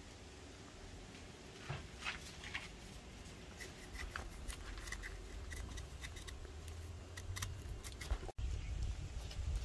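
Knife blade scoring the bark of a freshly scraped Ceylon cinnamon stem, marking it into sections so the bark can be peeled off: short scratchy clicks that come thicker after the first few seconds, over a low rumble.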